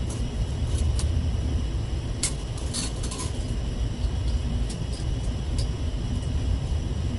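Steady low machinery rumble, with light clicks of small parts being handled and fitted onto a rod assembly, a quick cluster of them about three seconds in.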